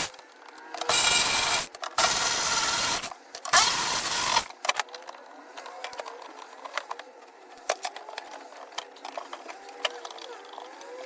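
Handheld power tool run in three bursts of about a second each, undoing the bolts of a Triumph TR6's gearbox tunnel cover, followed by small metallic clicks and clinks of hand work.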